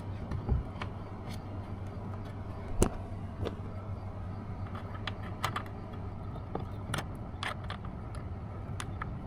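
Mounting screws being driven by hand into a car door speaker: scattered small clicks and taps of the screwdriver and screws, with one sharper knock about three seconds in, over a steady low hum.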